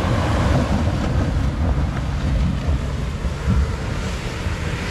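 Off-road Jeep's engine held at high revs as it climbs a slick, snowy slope, a steady low drone under heavy wind buffeting on the microphone.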